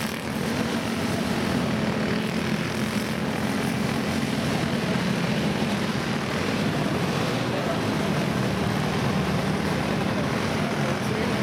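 Pack of four-stroke racing karts with Briggs & Stratton Animal engines running at speed on track, a steady buzzing drone from the field.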